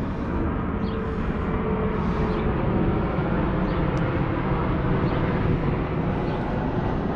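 A steady low rumbling noise, with a faint humming tone that fades out about a second in.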